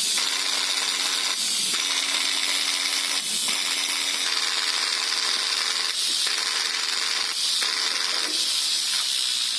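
Angle grinder running, a steady high hiss with a low hum under it. The sound shifts abruptly several times, at about one and a half, three, six and seven and a half seconds in.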